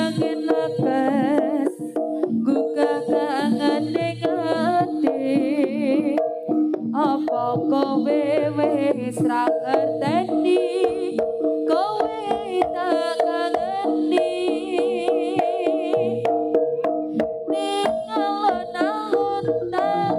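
Live Javanese jaranan gamelan music: drums beating steadily under held gong-chime tones, with a wavering lead melody above.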